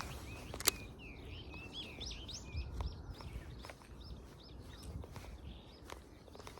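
A songbird singing a quick twittering phrase of rising and falling notes, thinning out toward the end, with a sharp click just under a second in over a low background rumble.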